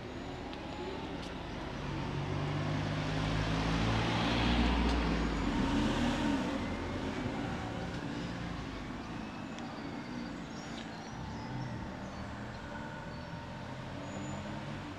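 A motor vehicle drives past on a city street, its engine and tyre noise growing to loudest about four to six seconds in and then fading, over steady background traffic.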